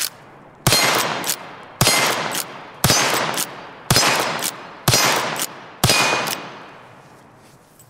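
Muzzle-braked Rossi R92 lever-action rifle firing .357 Magnum rounds: six shots about one a second, each followed by the short clack of the lever being worked. The last shot's echo fades away.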